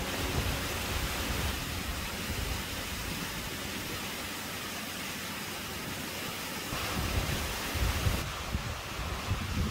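Calf Creek Falls pouring into its pool: a steady rush of falling water. From about seven seconds in, low gusts of wind buffet the microphone.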